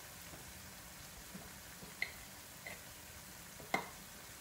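Chopped onions frying in olive oil over low heat: a faint steady sizzle, with a few short sharp pops, the loudest near the end.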